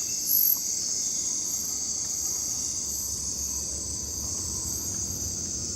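Night-time jungle insect chorus of crickets: a steady high-pitched trill, with a higher chirp repeating a little more than once a second, one of them louder shortly after the start.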